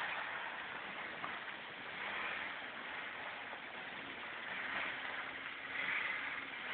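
Water rushing and splashing as an off-road 4x4 wades through a shallow creek. The vehicle's engine is faintly audible under the water noise as a low steady note past the middle.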